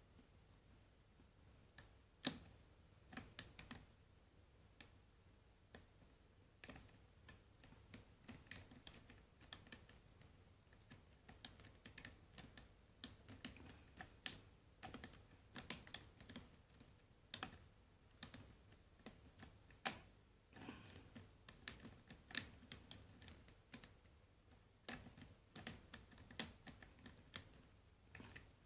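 Faint, irregular clicking of a lock pick working the pin stack of a 7-pin Best padlock under light tension, the pins being lifted and set one by one.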